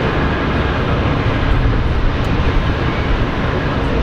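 Lockheed C-5M Super Galaxy's four General Electric F138 (CF6-80C2) turbofan engines running at taxi power: a loud, steady, deep rumble with a faint thin whine over it.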